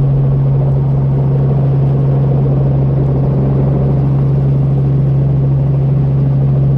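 Training helicopter's rotor and engine running, heard inside the cabin: a steady low drone with one strong unchanging hum that holds its pitch throughout.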